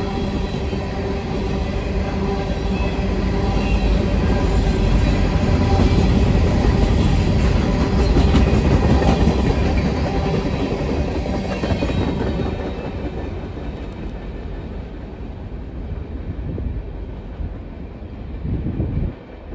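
CSX freight train of covered hopper cars rolling past: a loud, steady rumble of steel wheels on rail with some clatter, fading away in the second half as the last cars pass.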